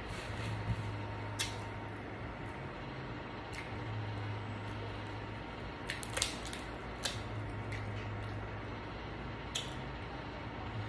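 Eating sounds from a seafood boil eaten by hand: a few short, sharp clicks and cracks at irregular moments, over a steady low hum.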